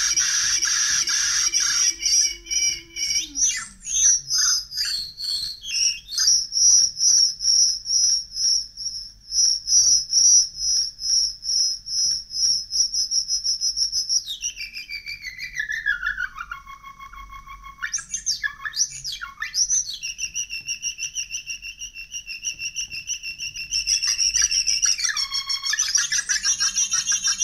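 Homemade Arduino synth built on the Mozzi sound library, played through a small audio amplifier and speaker, making high-pitched electronic chirps and whistles that pulse rapidly as its knobs are turned. About halfway the pitch glides down, then jumps back up and sweeps again near the end.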